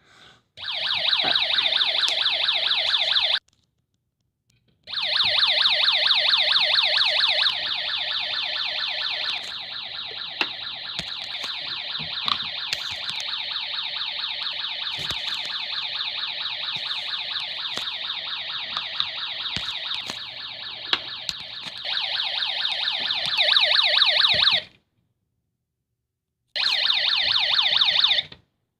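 Homemade Snap Circuits alarm set off with its test switch, sounding a loud, rapidly pulsing electronic alarm tone through its small speaker. It goes in three stretches: a short one, then one of about twenty seconds that is quieter in the middle, then a short one near the end.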